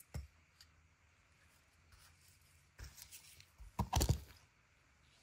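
Hands handling tools and containers on a work table: a knock just after the start, a few light clicks, then a cluster of knocks around four seconds in as a small container and a flat tool are set down.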